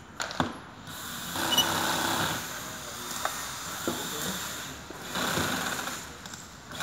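Office chair parts being handled and fitted together: a few sharp knocks and clicks, with two short stretches of rhythmic rattling, one about a second and a half in and one about five seconds in.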